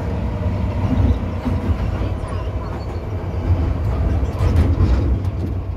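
MTR M-Train subway car in motion, heard from inside the cabin: a steady low rumble of wheels and running gear, with a few short clicks about four and a half seconds in.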